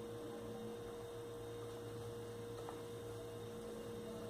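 Steady electrical hum with a faint tick about two and a half seconds in.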